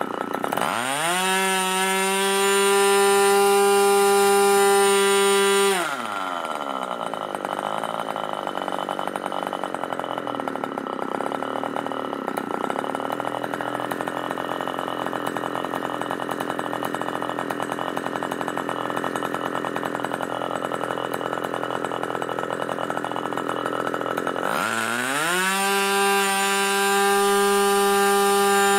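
Moki 61 LS two-stroke glow engine with a ringed, Schnuerle-ported piston, on a test stand, revving sharply from idle to full throttle, about 12,000 RPM, and holding there a few seconds. It then drops back to a steady idle around 2,400 RPM, and near the end it revs crisply back up to full throttle. Its low-speed needle has just been tuned and may still be a tad rich.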